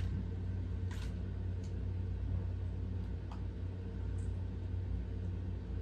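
Steady low hum, with about four faint clicks from a plastic pack of press-on nails being opened and handled.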